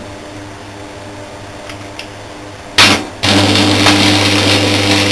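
Champion Twinarc AC arc welder's transformer humming, then about three seconds in a short burst and a loud, steady buzz with crackling as the output is put under load, the arc drawing around 100 A.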